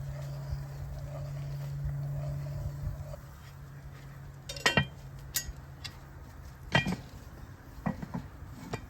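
A steady low hum that stops about three seconds in, then a handful of sharp clinks and knocks of utensils on a cast iron Dutch oven.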